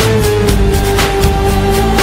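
Background music with a steady beat and a long held note.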